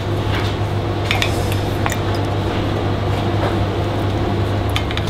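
Dishes and a serving spoon clinking a few times, spread through, as couscous is served, over a loud steady low hum.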